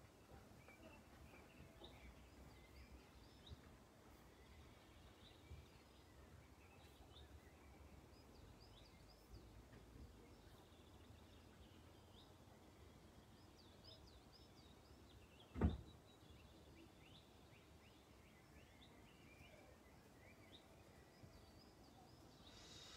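Faint scattered bird chirps over quiet background noise, with one dull thump about two-thirds of the way through.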